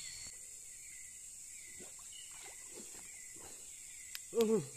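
Steady high-pitched chirring of night insects, with faint scattered rustling or sloshing. Near the end comes a click and then a brief, loud vocal sound that falls in pitch.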